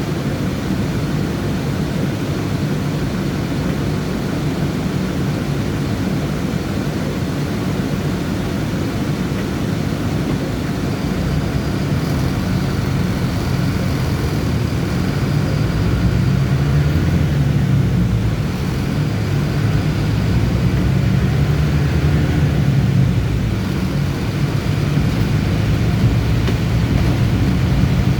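City bus engine and road noise heard from inside the moving bus, a steady low rumble. In the second half the engine note rises and falls a few times as the bus speeds up and slows.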